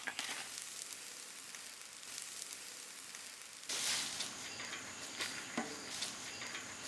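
Water-sprinkled banana-leaf parcels of fish sizzling and crackling faintly on a wire grill over a fire. About four seconds in it changes to outdoor ambience with insects chirping steadily in high tones.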